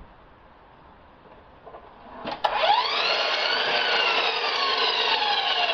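Harbor Freight sliding compound miter saw switched on with a click about two seconds in, its motor whining as it spins up to speed and then running loud, its pitch sagging slightly as it cuts through a white cedar board.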